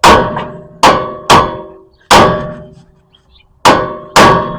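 Hammer blows on the steel front suspension of a 2002 Honda CR-V, struck to knock a stuck part loose so it pops out. Six loud, ringing metal clangs at uneven intervals.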